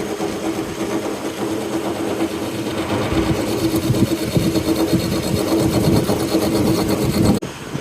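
Servo-driven checknut slot milling machine running with a steady motor hum. From about three seconds in, a rougher, louder grinding and rattling builds up, as of the cutter at work. Near the end it cuts off abruptly to a quieter hum.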